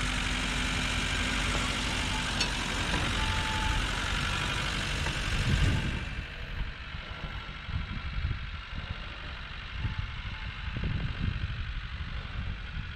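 A motor vehicle engine running. About six seconds in the sound changes: the hiss drops away and it goes quieter, with an uneven low rumble.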